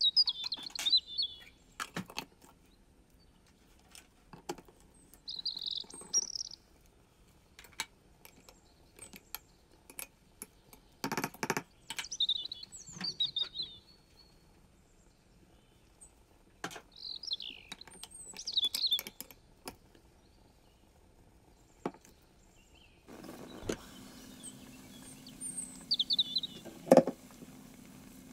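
A small bird chirping in short, high bursts every few seconds, with scattered clicks and knocks in between. About two-thirds of the way through, a steady low hum comes in, and a sharp knock near the end is the loudest sound.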